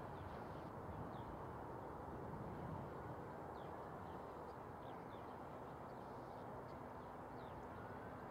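Faint outdoor ambience: a steady low rumble with short, high bird calls every second or so.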